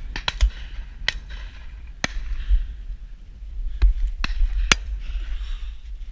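Wind rumbling on the microphone, with about eight sharp cracks spread over the first five seconds.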